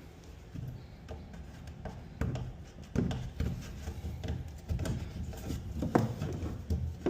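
Handling noise from working electrical wire by hand: irregular light knocks, clicks and rubbing, with sharper knocks about three and six seconds in.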